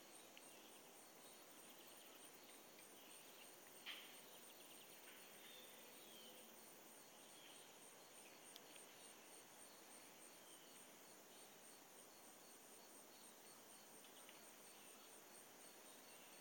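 Faint outdoor insect chorus: a steady, high-pitched trill pulsing fast and evenly, with a few faint short chirps and one sharp click about four seconds in.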